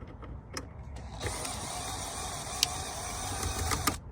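Hands-on work in a car's centre dash: a few clicks, then a steady mechanical noise lasting nearly three seconds with a sharp click partway through, ending in another click.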